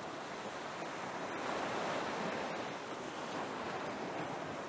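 Steady rushing hiss of water jets from water cannons spraying in arcs over the water, swelling slightly about two seconds in.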